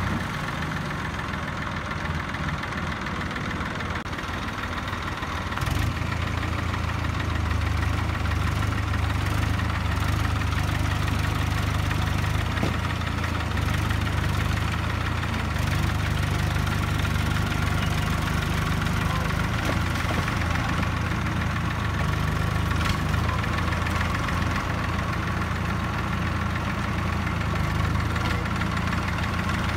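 Diesel tractor engine running steadily under load, getting louder about six seconds in and holding there, as a tractor on cage wheels strains to tow a Sonalika tractor stuck in mud.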